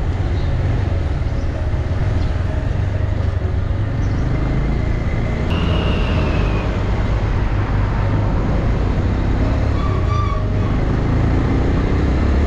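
Motorcycle engine running steadily under way, with a continuous rumble of road and wind noise. A couple of faint brief tones from passing traffic sound about six and ten seconds in.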